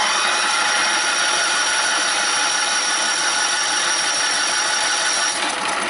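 Honda ES6500 generator's two-cylinder engine cranked over by its electric starter without firing, for a compression test on cylinder two: a steady whir for about six seconds, with a thin high whine that drops out near the end. The cylinder comes up to 150 psi, which the owner takes as a sign the engine is getting weak.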